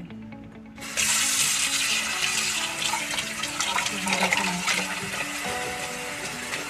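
Kitchen tap turned on about a second in, then running steadily as a peeled hairy gourd is rinsed under the stream and the water pours into a pot in the sink.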